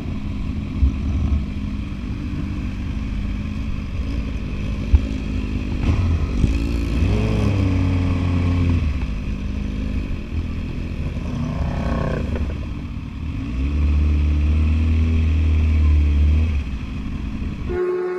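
Sport motorcycle engine running on the road, its pitch rising and falling twice as it is revved through the gears, with a couple of sharp clicks early on.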